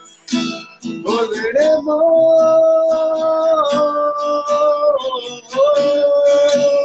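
Live song with acoustic guitar strumming and a singer holding long wordless notes. The first rises into a sustained note about a second in, steps down slightly partway, and ends around five seconds; a second held note follows near the end.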